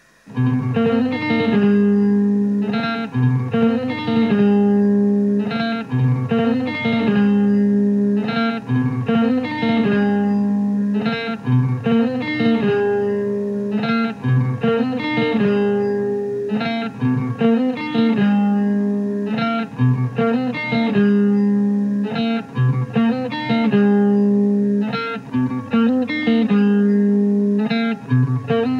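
Music: a guitar playing a short phrase of plucked notes over and over, the phrase coming round about every two seconds. It comes in suddenly about half a second in, out of faint hiss.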